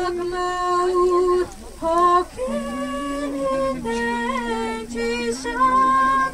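A young woman singing a slow melody solo into a microphone, holding long notes with short breaths between phrases.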